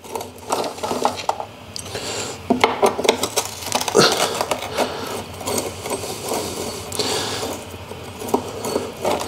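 A T-handle wrench unscrewing 8 mm bolts from the underside of a motorcycle's tail section: a run of rapid metallic clicks and scrapes as the tool turns in the bolt heads.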